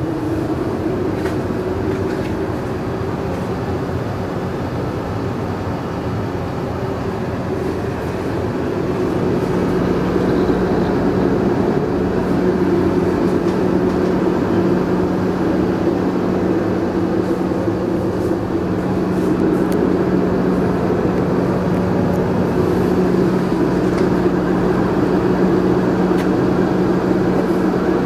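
Steady mechanical drone of a diesel Freightliner M2 party bus running, heard inside its passenger cabin, with a steady hum that grows a little louder about nine seconds in.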